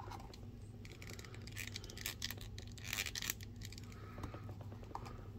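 Faint clicks and scrapes of small plastic action-figure parts being handled, as horn pieces are swapped on the figure's helmet, with a cluster of clicks about two seconds in and another about three seconds in.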